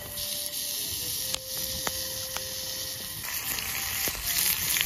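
Pieces of beef sizzling in a hot cast-iron skillet, a steady hiss that grows fuller about three seconds in as more meat goes in. A few light clicks sound through it.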